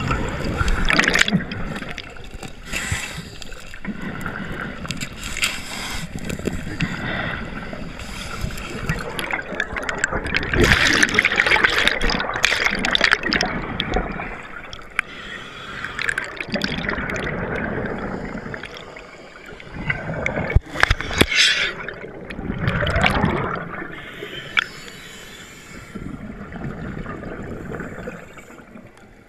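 Scuba diver's breathing heard underwater: the regulator's rush and gurgling exhaled bubbles in long swells every few seconds. A few sharp knocks come about two-thirds of the way through.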